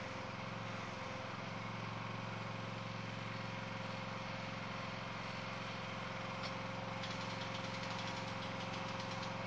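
Engine running steadily at a constant speed, with a steady whine above its low hum.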